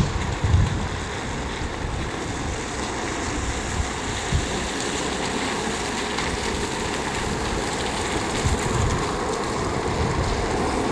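Steady hiss of road traffic on a city street, with a few brief low thumps of wind buffeting the microphone.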